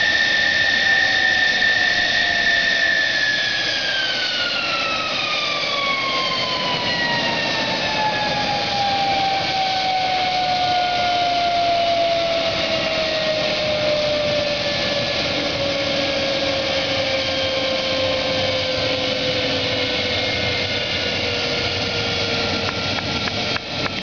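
F-14 Tomcat's twin jet engines spooling down as they run out of fuel: a steady high whine for the first few seconds, then a long, slow falling whine as the turbines wind down.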